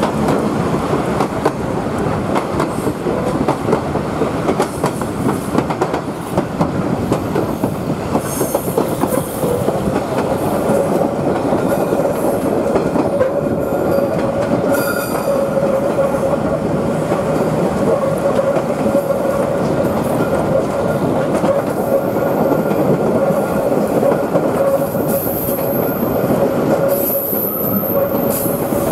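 Queensland Rail 2000 class diesel rail motor running along the track with a steady rumble and rail clatter. Its wheels squeal on the tight curves: a steady whine sets in about a third of the way through, and sharper high squeals come and go.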